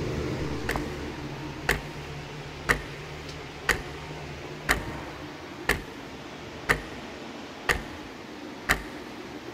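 A clock ticking steadily, one tick each second, over a low hum that fades away in the first couple of seconds.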